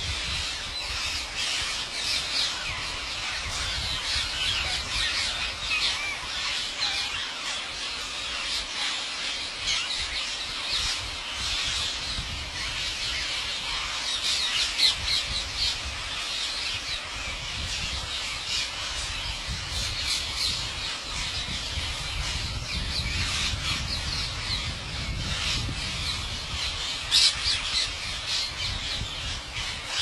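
A large flock of green parakeets calling all at once: a dense, unbroken screeching chatter with a few louder shrieks, over a low rumble.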